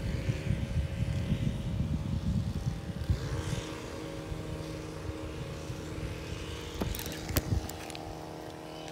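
Wind buffeting the microphone, then a steady engine hum that sets in about three seconds in and holds, with a few sharp clicks near the end.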